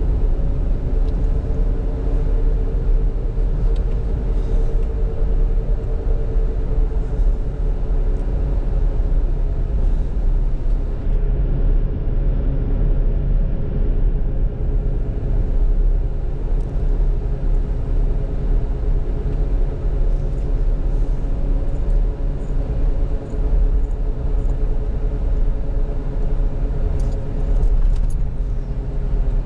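Steady engine and road rumble heard inside a moving Ford's cabin, with a faint hum that drifts a little in pitch.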